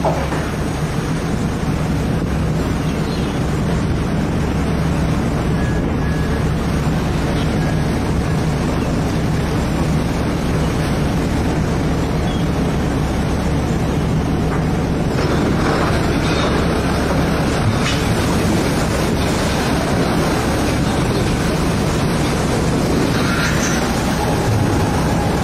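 Fishing boat's engine running with a steady low drone, under wind and sea noise.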